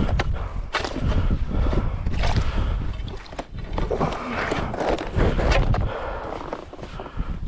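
Wind buffeting the microphone, with crunching and knocking from someone moving about on snow-covered ice.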